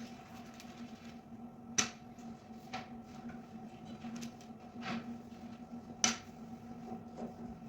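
Kitchen utensils being handled: two sharp clicks, about two seconds in and again about four seconds later, with a few lighter knocks between, over a steady low electrical hum.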